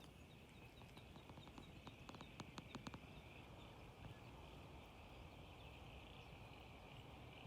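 Faint outdoor ambience: a steady high-pitched chorus carries on throughout, with a quick run of small clicks about two seconds in.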